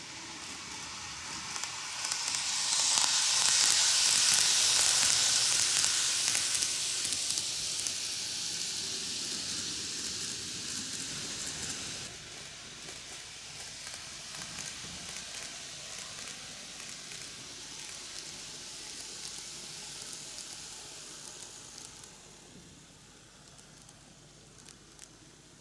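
GreenMax Keio 1000 series N gauge model train running on its track: a rattling hiss of small wheels on the rails and the motor, growing loudest a few seconds in as it passes close, then slowly fading as it runs away.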